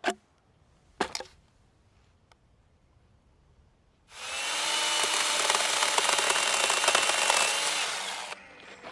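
Two sharp clicks, then a small electric power saw runs steadily for about four seconds, cutting through wood, starting about four seconds in and stopping shortly before the end.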